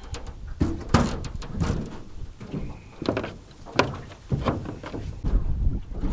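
Wind buffeting the microphone with a low rumble that grows stronger near the end, over a string of irregular knocks and clunks, the loudest about a second in.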